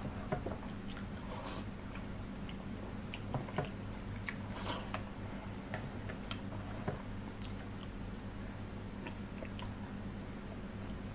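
Close-miked chewing and wet mouth smacks of someone eating curry and rice by hand, with scattered squelching clicks as fingers mix the rice and curry on a steel plate.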